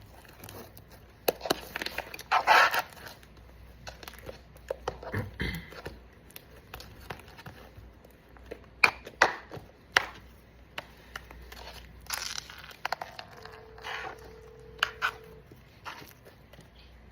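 Hands squishing and stretching homemade slime: irregular wet clicks, pops and crackles.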